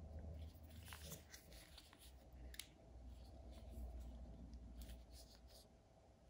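Faint clicks and light scraping as a Wera Tool-Check Plus set, a plastic holder loaded with steel bits and sockets, is handled and turned over in the hands; the sharpest click comes about two and a half seconds in.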